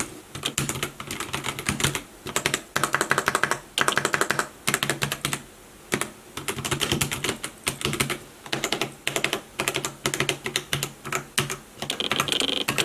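Typing on an ADX FireFight Advanced MK17 TKL mechanical keyboard: fast runs of key clicks in bursts, broken by short pauses of about half a second to a second.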